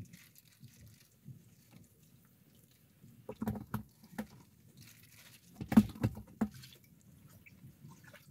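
Water slapping and dripping against the hull of a small fishing boat, in two short clusters of splashy knocks, about three and six seconds in.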